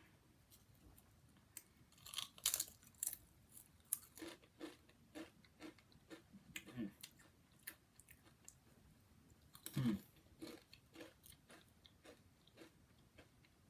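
Person biting into and chewing crunchy wavy Pringles potato crisps, a run of irregular crunches starting about two seconds in, with one louder crunch near ten seconds.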